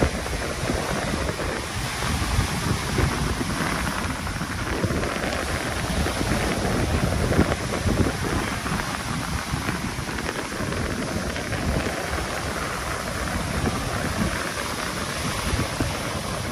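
Sea waves breaking and washing up a sandy beach, a steady rush of surf with a low rumble of wind buffeting the microphone.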